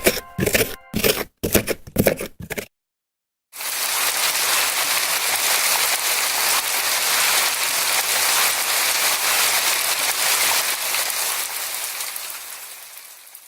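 A few ringing, bell-like strikes end about two and a half seconds in; after a short silence, steady rain falls for about ten seconds and fades out near the end.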